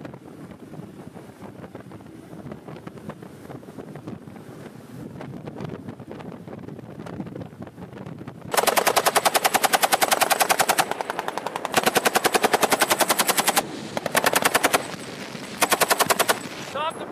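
Fast boat running with rushing water and wind noise. About halfway in, a belt-fed machine gun opens up in four bursts of evenly spaced shots, roughly ten a second: two bursts of about two seconds, then two short ones.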